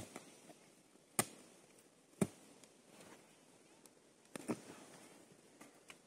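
Shovel blade chopping into the soil, five sharp strikes at uneven intervals, the last two in quick succession.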